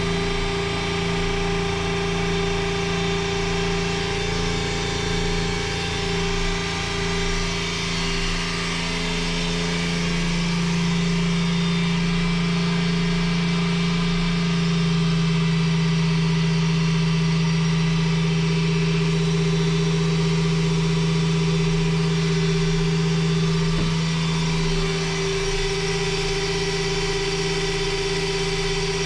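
A watermaker's new electric high-pressure pump running with a steady hum. Its note and loudness change a little about ten seconds in, and again near the end, as the pressure regulator knob is turned.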